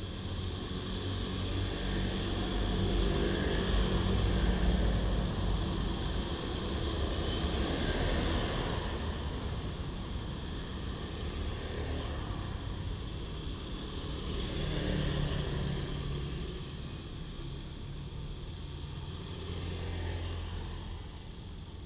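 Street traffic: motorcycles and cars passing one after another, each swelling and then fading, over a steady low engine hum.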